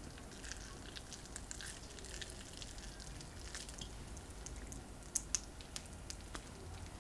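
Crisp baked grated-potato crust, topped with melted cheese, crackling as hands tear the filled roll apart: a scatter of small crackles, with two sharper snaps a little after five seconds.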